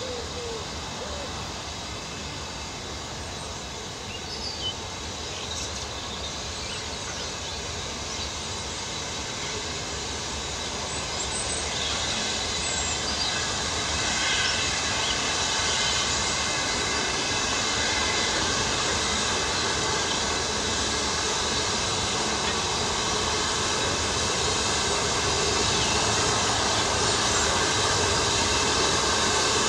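Steam locomotive approaching, its working sound growing steadily louder.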